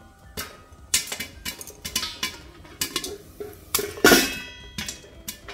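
Popcorn kernels popping in oil inside a lidded steel pot: irregular sharp pops and knocks against the lid, some leaving the lid ringing. About four seconds in, the steel lid is handled with a louder metallic clank.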